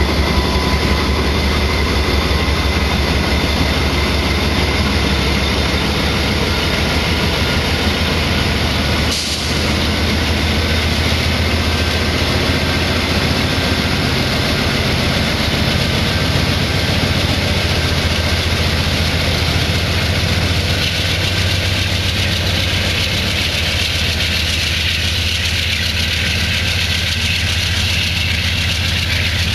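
Diesel-electric freight locomotive engines running steadily with a low drone. There is a brief dip about nine seconds in.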